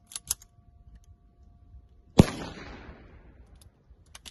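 A few sharp clicks, then about two seconds in a single shot from a .22 LR rifle fired through a 3D-printed suppressor, its report echoing and dying away over about a second. Two more clicks come near the end.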